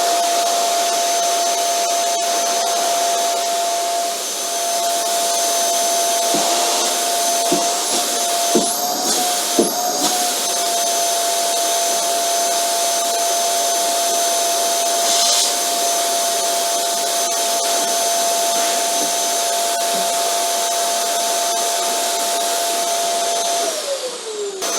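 Vacuum cleaner running steadily, its motor giving a constant whine over rushing air. There are a few sharp knocks between about a quarter and halfway through, and near the end the whine falls in pitch and the level dips.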